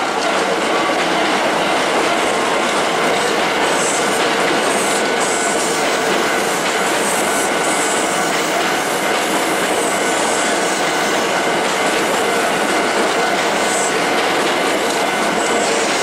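Hankyu electric commuter train passing at close range: a steady loud rumble of wheels on rail with clatter over the rail joints, and several brief high wheel squeals.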